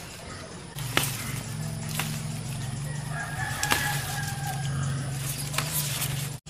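A rooster crows once, about three seconds in, over a steady low hum that starts about a second in. A few sharp clicks come through.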